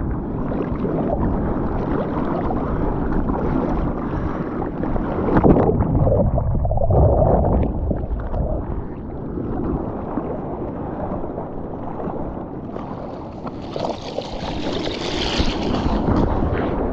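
Water sloshing and splashing around a surfer's camera in the sea, with wind buffeting the microphone. About 13 seconds in a louder hiss of foaming whitewater rises, then fades near the end.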